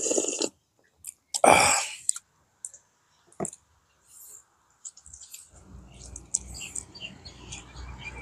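A person slurps bulanglang vegetable soup from a bowl, with two loud slurps near the start. Then comes close-up eating of fried fish and rice: scattered wet mouth clicks and smacks, turning into steady chewing in the second half.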